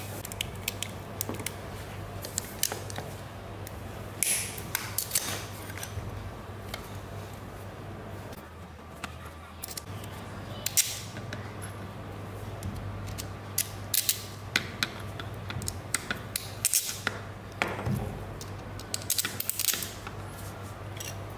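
Scattered small clicks, taps and snips of hand tools and small metal parts being handled during work on a table fan motor's coil, over a steady low hum.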